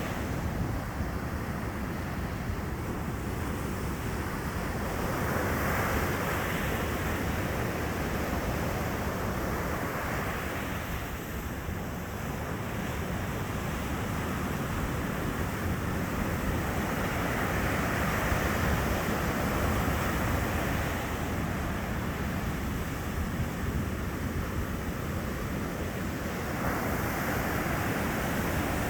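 Sea surf breaking on a beach: a steady wash of wave noise that swells about four times as successive breakers crash and spread.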